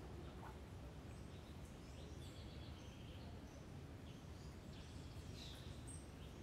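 Quiet ambience: a low steady rumble with faint, scattered high bird chirps.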